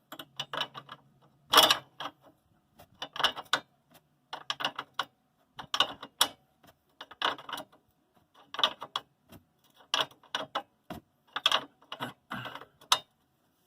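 Ratcheting wrench clicking in short runs, one stroke about every second and a half, as the nut on a stabilizer-bar link is worked loose.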